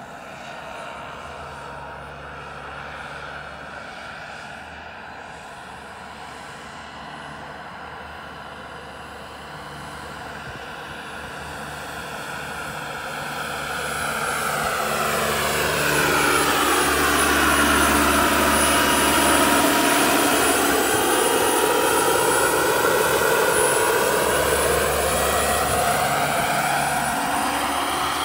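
Radio-controlled Chinook model helicopter running on a Jakadofsky 5000 turbine, its tandem rotors turning: a steady turbine whine and rotor hum. It is fainter at first, grows louder from about halfway through as the helicopter comes closer, and sweeps down and back up in pitch while it passes near.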